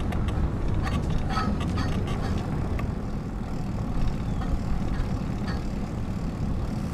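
Steady low rumble of wind buffeting a bike-mounted camera microphone while the bicycle rolls over brick pavers, with faint scattered clicks and rattles.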